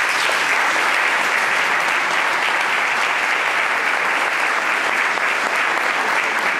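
Loud, steady applause from a large audience clapping in a hall.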